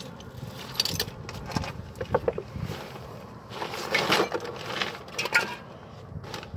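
Metal hand tools clinking and rattling, a string of short sharp clinks with a stretch of shuffling and scraping in the middle, as someone rummages for a tool.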